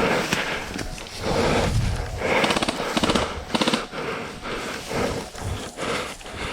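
Airsoft guns firing short rapid full-auto bursts, with rustling and hissing noise between them.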